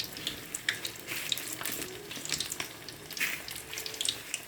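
Breaded chicken pieces deep-frying in hot oil: a steady sizzle with many scattered crackles and pops.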